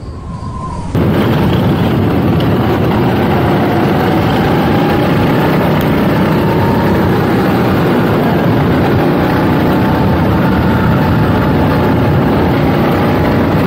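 Go-kart engine running at speed, recorded onboard, mixed with rushing wind on the microphone. Its pitch rises and falls gently with the throttle. The sound jumps abruptly louder about a second in.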